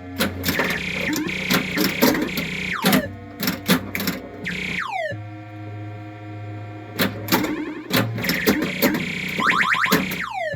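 Flash pinball machine in play: electronic sound-board tones over a steady drone, with quick falling pitch sweeps a few times, and sharp clicks and knocks from the playfield mechanisms. The tones show that the repaired MPU board is driving the game normally.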